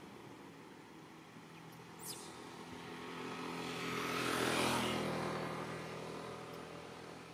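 A motor vehicle passing by: its engine hum and road noise swell up, are loudest about halfway through, then fade away. A brief sharp click about two seconds in.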